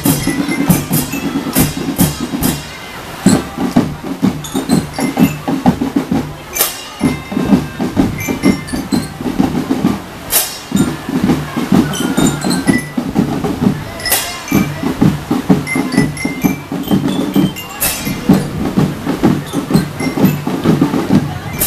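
Children's marching drum band playing outdoors: bass and snare drums beat a steady marching rhythm, with a cymbal crash every few seconds.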